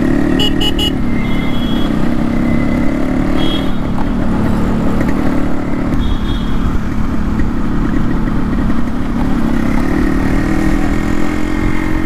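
Yamaha RX100's air-cooled 98cc single-cylinder two-stroke engine running steadily while riding in traffic, with low wind rumble on the microphone. The engine note picks up a little near the end.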